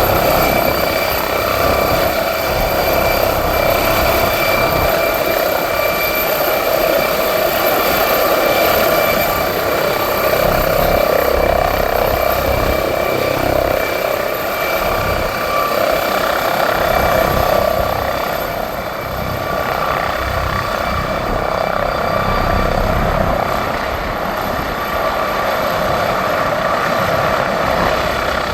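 MD 902 Explorer twin-turbine NOTAR police helicopter running close by: a steady turbine whine over the throb of the main rotor and rushing air. The level dips slightly in the last third.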